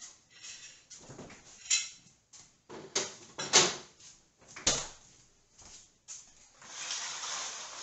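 Household handling sounds while food is put away: several sharp knocks and clatters, the loudest about three and a half seconds in, then a rushing hiss lasting about a second and a half near the end.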